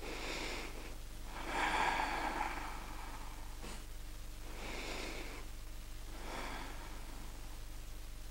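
A woman's slow breathing: about four soft breaths, the strongest about a second and a half in.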